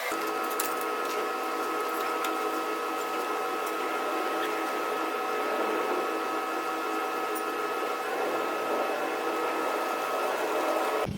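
A small electric motor running steadily with a whine of several held tones, stopping abruptly near the end.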